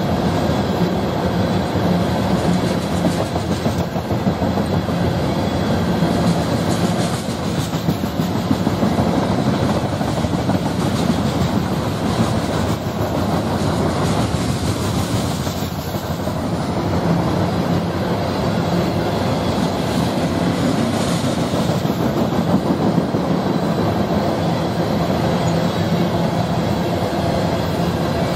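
A freight train of tank cars rolling past close by: a steady rumble of steel wheels on rail, with clicks as the wheels cross the rail joints.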